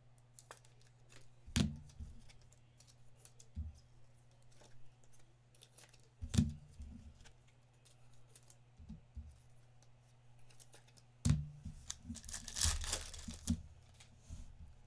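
A foil trading-card pack torn open, a rough tearing hiss lasting about a second near the end, with a few sharp knocks of packs or cards set down on the table before it. A low steady hum runs underneath.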